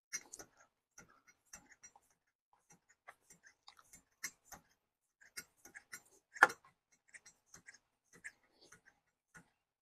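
A few faint, irregular clicks and taps, with one louder tap about six and a half seconds in.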